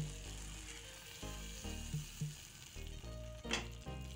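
Masala Maggi noodles with vegetables sizzling in a kadhai just taken off the flame, stirred with a fork, with a couple of sharp clicks of the fork against the pan near the end.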